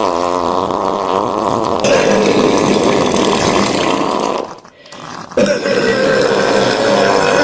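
Two long human burps, the first lasting about four and a half seconds, the second starting again about a second after it breaks off.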